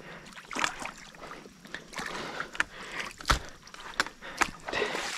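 Footsteps squelching and sloshing through wet mud and shallow water on a drained pond bed, irregular, with a heavier thud a little past three seconds in.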